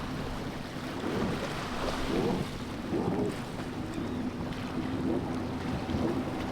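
A motorboat's engine running with a steady hum, over the rush of water and wind buffeting the microphone.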